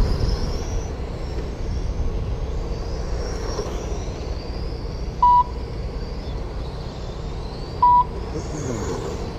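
Electric 1/10-scale VTA radio-controlled cars running laps, their motors making a high whine that rises and falls as they speed up and slow for the corners. A short, sharp electronic beep sounds twice, about five and eight seconds in, typical of a lap-timing system registering a car crossing the line.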